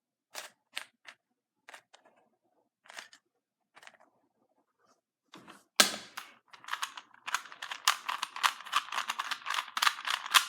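An old plastic Rubik's cube being twisted, its layers clicking: a few separate clicks at first, a loud snap about six seconds in, then a fast run of clacking as it is turned quickly. The cube is stiff and hard to turn.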